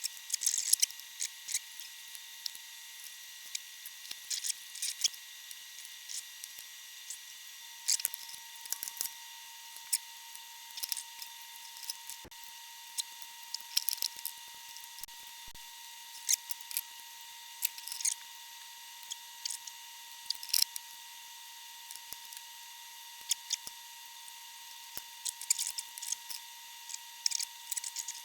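Scattered light clicks and scrapes of small hand tools working on an old valve amplifier chassis, over a faint steady high-pitched tone.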